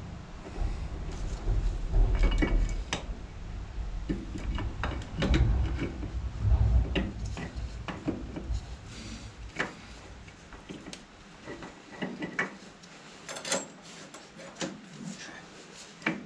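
Metal clinks, knocks and scrapes of drum-brake shoes and their springs being handled and fitted on a David Brown 996 tractor's brake backing plate, with heavier knocks in the first half and lighter, sparser clicks later.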